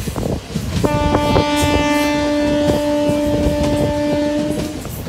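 Train horn sounding one long, steady blast of about four seconds, starting about a second in. Under it, the express train's wheels rumble and click over the rail joints.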